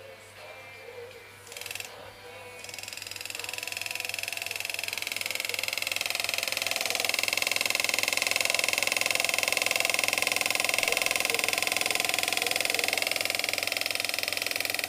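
Engraving handpiece driving a graver point into the inside of a metal ring: a rapid, even buzz of fast hammer strokes. It starts a couple of seconds in, builds up over the next few seconds, runs steadily, and stops abruptly at the end.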